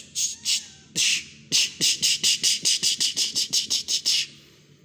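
A person making a rapid run of short hissing 'ps-ps-ps' mouth sounds, about five a second for nearly three seconds, to call kittens.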